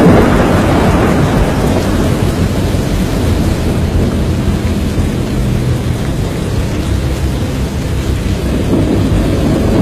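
Thunderstorm noise: a loud, steady low rumble of wind and rain, with no separate thunderclaps.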